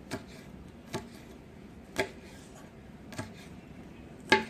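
Knife slicing through green beans onto a cutting board: five separate sharp knocks, about one a second, the loudest near the end.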